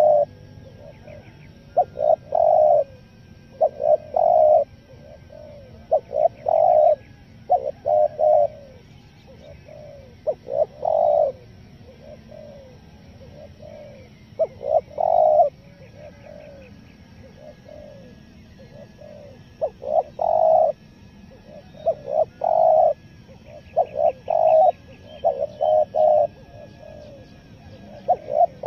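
Spotted dove cooing in repeated phrases of short coos, some pressed and some broken up and stuttering, a phrase every couple of seconds with a few longer pauses. Small birds chirp faintly.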